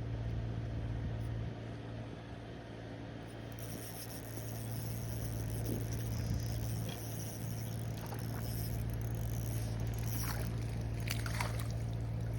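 Steady low mechanical hum under a noisy outdoor background, with a hiss that brightens about three and a half seconds in; a few light clicks near the end.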